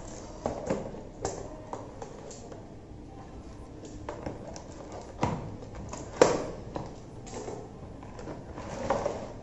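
A cardboard ring light box being handled on a table: scattered taps, knocks and light scraping as it is turned over and set down, with the sharpest knock about six seconds in.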